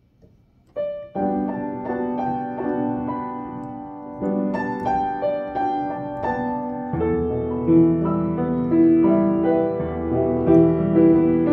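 Solo piano playing a pop song melody from sheet music. It starts about a second in, and about halfway through the left hand adds a fuller, lower accompaniment under the tune.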